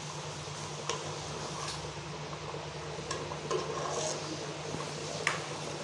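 A serving spoon clinking against a cooking pot, five sharp taps spread out, as curry is dished out, over a steady low hum.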